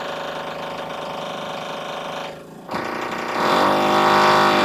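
Electric power drill running steadily, dropping off briefly about halfway through, then starting again louder.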